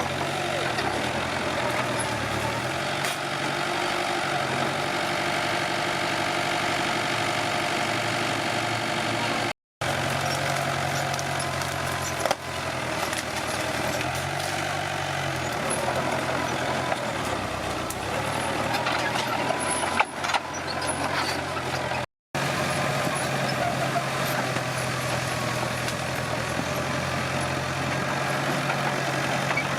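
Komatsu D21P bulldozer's diesel engine running steadily while working. It is broken by two sharp knocks, and the sound cuts out twice for a moment.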